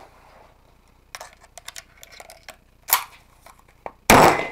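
Light metallic clicks and knocks of a shotgun being handled, a sharp knock near three seconds in, then one loud shotgun blast about four seconds in that dies away over half a second.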